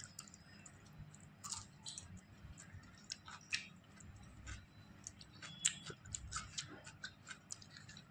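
Faint, irregular soft clicks and smacks of someone eating by hand, chewing and tearing roti, with one sharper click a little before six seconds in.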